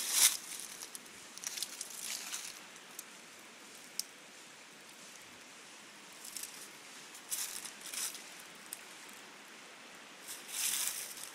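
Footsteps crunching and rustling on a woodland trail in irregular bursts, with quiet stretches between and one sharp click about four seconds in.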